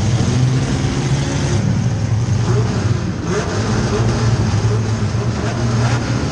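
Compact demolition-derby car engines running, with several short revs rising in pitch.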